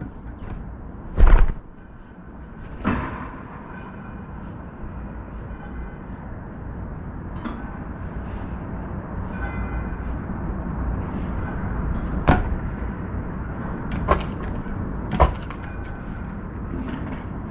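Sharp knocks and taps at a balcony bird feeder, the loudest about a second in and five or so more spread through, over a low rumble of wind on the microphone, with faint short high chirps of small birds.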